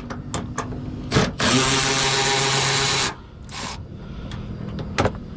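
A power drill/driver runs for about a second and a half, spinning out a 7 mm bumper bolt, and stops abruptly. Light clicks and knocks of the tool and fasteners come before and after it.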